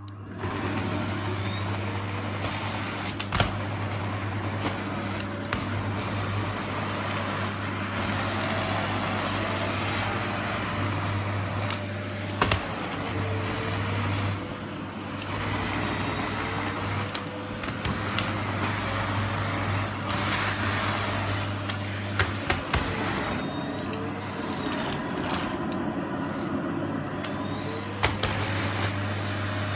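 Vacuum cleaner running steadily, its whine slowly rising and falling in pitch, with a few sharp clicks as small objects are sucked up.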